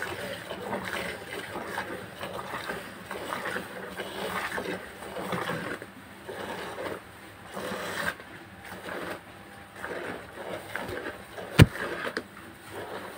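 Hand milking: rhythmic jets of milk squirting from the teats into a plastic bucket of frothy milk, a steady run of short splashing squirts. A single sharp knock near the end.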